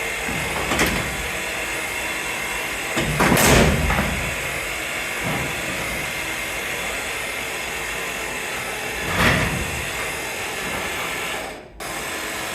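Hand work on a farm machine's metal parts: a steady mechanical background noise with three louder clunks, the first about a second in, the biggest at about three and a half seconds, and the last about nine seconds in.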